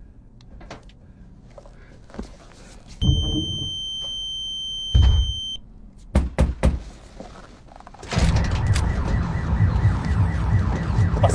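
A thump, then a steady high-pitched electronic alarm beep held for about two and a half seconds, with a louder thump near its end before it cuts off. A few sharp clicks follow, and from about eight seconds in a loud steady low noise takes over.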